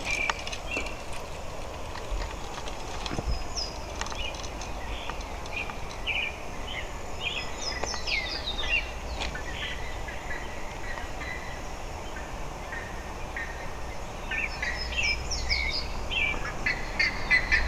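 Wild birds singing, quick runs of short chirping notes that come thickest about eight seconds in and again near the end, over a low steady rumble.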